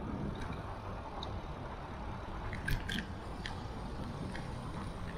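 Steady low rumble of a moving bicycle, tyres on asphalt and air rushing past the bike-mounted action camera, with a cluster of sharp clicks a little under three seconds in and a few faint ticks.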